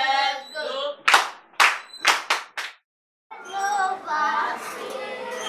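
Children singing, then five hand claps in a quick, uneven run; after a brief gap, children's voices again.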